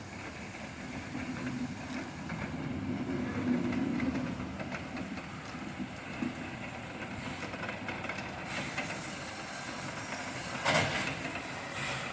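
BDZ steam locomotive 16.27 on a turntable: a steady low rumble with scattered clanks and clicks. Near the end there is one short, loud burst.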